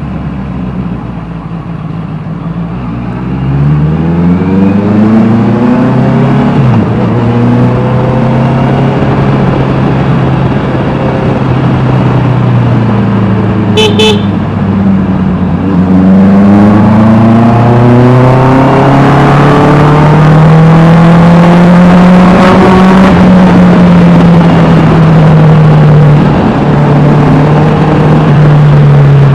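Honda CBR 650R's inline-four engine through an Austin Racing exhaust, pulling hard through the gears, the revs climbing and dropping back at each shift. A brief horn toot about halfway through.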